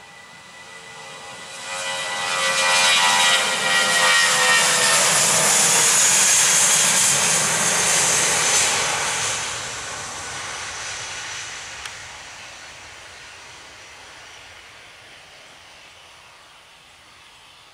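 Airbus A320-232's twin IAE V2500 turbofans at take-off thrust on a rolling take-off run down a wet runway. The sound swells about two seconds in to a loud, whining rush, then fades steadily as the jet accelerates away.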